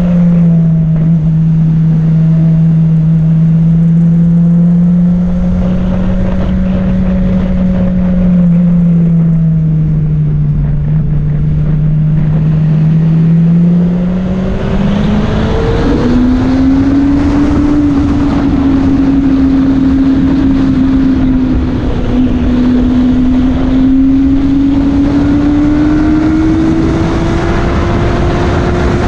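Honda CBR600RR's inline-four engine pulling steadily at a moderate, wavering pitch. About halfway through, the pitch rises and then keeps climbing slowly as the bike speeds up.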